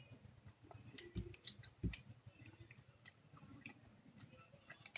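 Faint, scattered small clicks and taps from a toddler chewing jelly candy and fingering its plastic packet, with a soft thump about a second in and a slightly louder one near two seconds.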